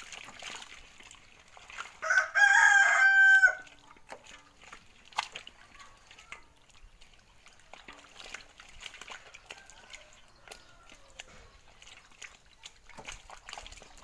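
A rooster crows once, loud, about two seconds in, for roughly a second and a half. Around it are faint wet splashes and slaps from live fish being handled in a metal basin of water.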